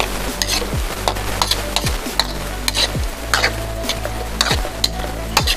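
Squid stir-frying in oyster sauce: a steady sizzle, with a spatula scraping and knocking against the pan about twice a second.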